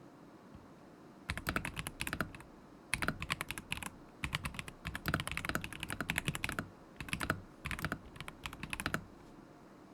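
Typing on a KZZI K75 Pro mechanical keyboard with Moment linear switches: rapid keystroke clacks in several bursts with short pauses between. The typing starts a little over a second in and stops about a second before the end.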